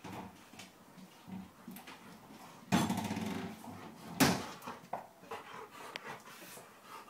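Dog vocalizing loudly for about a second, about three seconds in, while nosing a large play ball along a carpeted floor, followed a second later by one sharp knock. Smaller knocks and scuffs of the ball and paws come and go.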